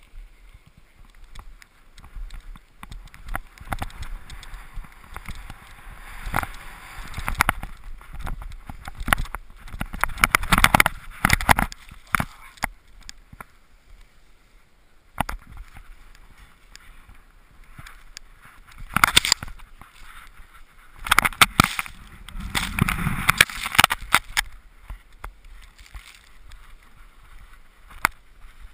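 Skis sliding and scraping over snow, coming in irregular surges that are loudest about two-thirds of the way through, with sharp knocks mixed in.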